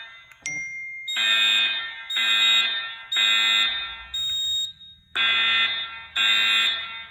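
Commercial fire alarm horns sounding in the three-pulse temporal evacuation pattern: three harsh blasts about a second apart, then a pause, repeating. A fainter single tone from another device follows each group of three.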